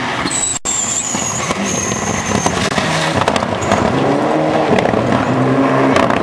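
Rally car at full throttle on a gravel stage, the engine revving up and down through the gears, with several sharp cracks and gravel noise.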